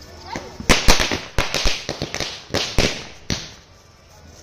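Firecrackers going off: a rapid, uneven run of about ten sharp bangs that starts under a second in and stops a little past three seconds.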